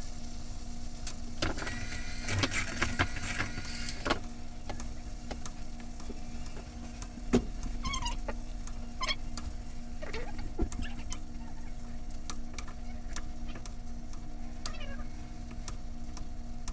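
A metal spoon basting a T-bone steak with melted butter in a tilted frying pan: repeated clicks and scrapes of the spoon against the pan over butter sizzling gently on low heat. A steady low hum runs underneath, and a few short squeaky chirps come near the middle.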